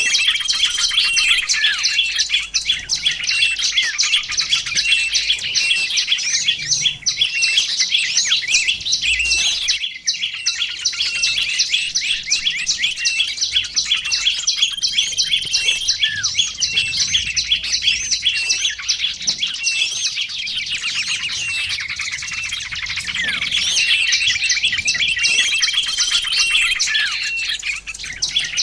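A dense, unbroken chorus of high chirps and twitters from small songbirds, the notes overlapping continuously.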